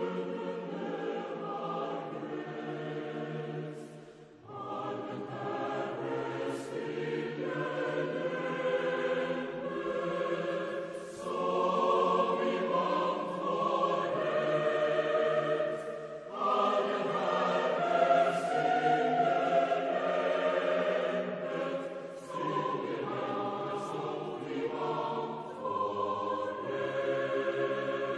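A choir singing a slow piece in sustained chords, phrase by phrase, with a brief break about four seconds in: the music NRK television played as its New Year's Eve sign-off before going off the air.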